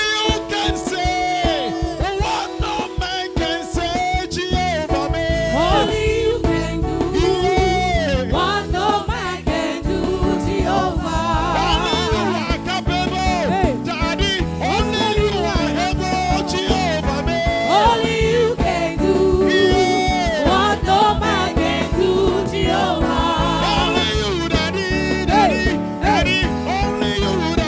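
Gospel praise music with a steady beat and bass line, with a wavering lead melody over it.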